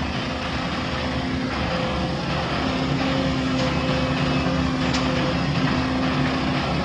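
Heavy diesel machinery engine running steadily at a constant pitch, with no change in speed.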